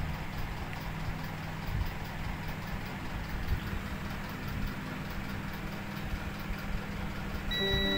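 Steady low rumble with a low hum. Music comes in near the end.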